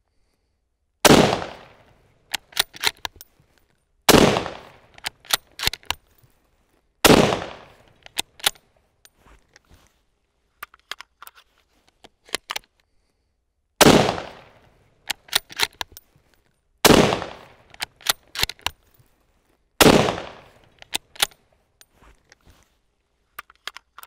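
Six shots from a Bergara B14 Sporter bolt-action rifle in .308 Winchester, fired in two strings of three about three seconds apart. After each shot comes a quick run of metallic clicks as the bolt is worked. A few seconds of scattered clicking separate the two strings.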